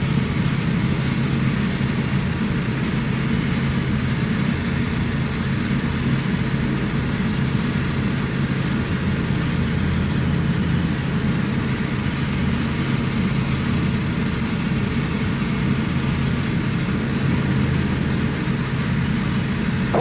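Evektor SportStar's Rotax 912 flat-four engine and propeller droning steadily in flight, heard inside the cockpit, with a steady rush of air noise over it.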